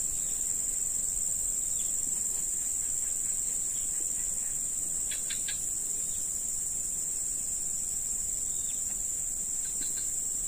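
Insects buzzing in one steady, continuous high-pitched tone, with a few faint short ticks about halfway through.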